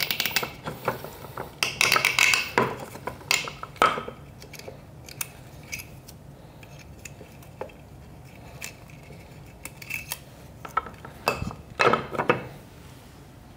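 Handling noise from the open metal base of a DF83 coffee grinder: irregular clicks, clinks and rattles of wires, plastic connectors and the housing being moved about. The clatter is busiest in the first few seconds and again just before the end.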